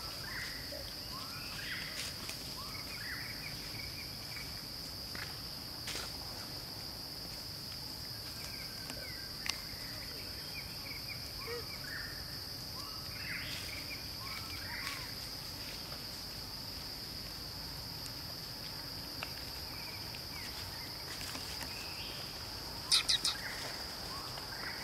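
Steady high-pitched insect drone, with scattered short chirps and a few faint clicks. Near the end comes a quick run of three sharp, high chirps, the loudest sound.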